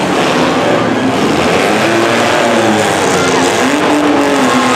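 Several compact demolition-derby cars' engines revving up and down at once, their pitches overlapping, over a steady loud din.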